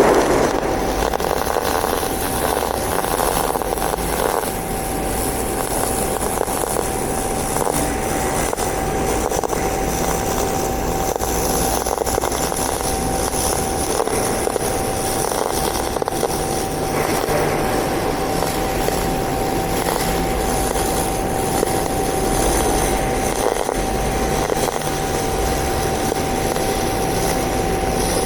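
MIG (GMAW) welding arc with solid wire running continuously while laying a fillet weld, a steady hiss and crackle with a constant high-pitched tone under it.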